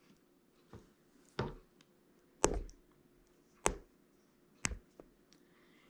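Hands handling cardboard and paper craft pieces on a wooden tabletop: about five short, sharp taps and knocks, roughly a second apart, the loudest in the middle.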